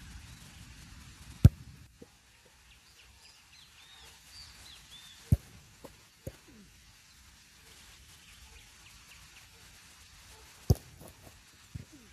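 A football being struck in a goalkeeper drill: several sharp thuds, the loudest about a second and a half in. Birds chirp faintly between them.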